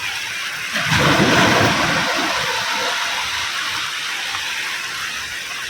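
Ocean surf: a wave breaks about a second in with a heavy rushing surge, then its foam washes out in a long fading hiss over the steady background of the sea.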